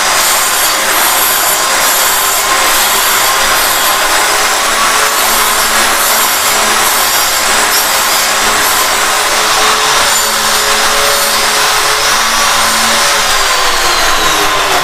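Handheld electric cutter (circular saw) running steadily while it cuts a shallow hinge recess into the edge of a plywood door. Its pitch drops near the end as the blade slows.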